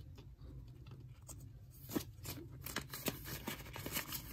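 Rupiah paper banknotes being handled, with soft rustling and a few small clicks and taps, the sharpest about two seconds in.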